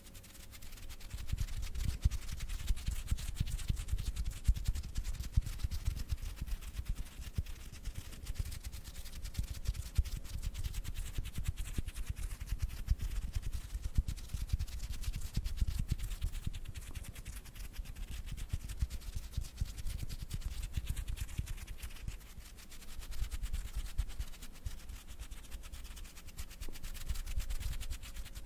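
ASMR hand sounds: hands rubbing together and fluttering close around a foam-covered microphone. A dense, deep, close-up rustle of skin on skin, rising and falling in waves.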